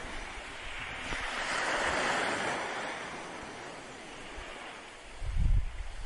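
Steady roar of Niagara's Horseshoe Falls, a wash of rushing water that swells about two seconds in. Wind buffets the microphone near the end.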